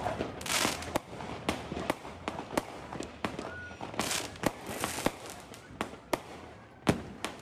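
Aerial fireworks going off: an irregular run of sharp bangs and cracks, with hissing bursts between them and the loudest bang near the end.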